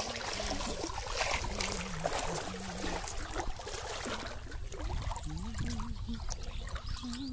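Water splashing and sloshing as legs wade through shallow pond water, with a steady run of small uneven splashes.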